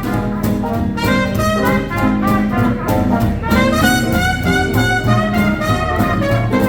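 Live small-band hot jazz in a 1930s swing style, with trumpet or cornet playing the melody over a walking bass and rhythm section.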